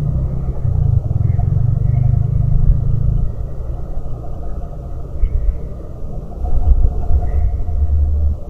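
Motorbike passing, heard as a low rumble through a CCTV camera's microphone, loudest in the first three seconds and then fading.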